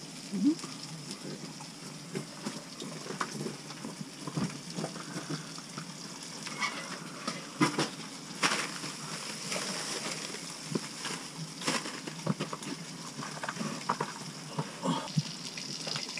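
Forks clicking and scraping on plates as fried trout is eaten, scattered light taps over a steady high hiss.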